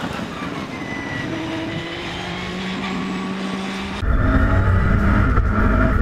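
850bhp Audi Quattro Sport race car's turbocharged five-cylinder engine running hard as the car drives on the track, its tones gliding slightly down in pitch. About four seconds in, the sound cuts abruptly to a louder, deeper engine note from inside the car.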